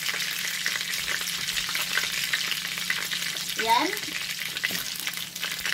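Hot oil sizzling in an aluminium wok, a steady hiss full of fine crackles as small bits fry in it.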